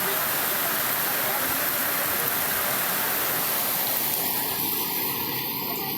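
Floodwater rushing past, a steady loud noise without pitch; it thins out somewhat about four seconds in.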